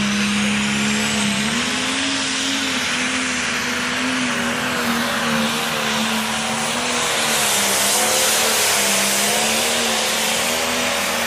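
Diesel pulling tractor's engine running flat out under load as it drags a weight-transfer sled, belching black smoke. The engine note holds steady, rising a little about a second and a half in, then wavers slightly over a loud rushing exhaust noise.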